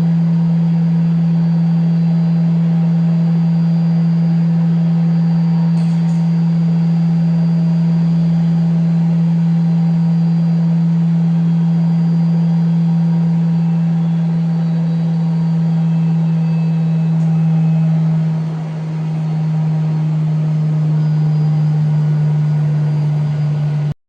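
Thermo Scientific Heraeus Multifuge X3R centrifuge running under test after repair: a loud, steady low hum with faint higher whines above it. The hum drops slightly in pitch and loudness about eighteen seconds in, then runs on.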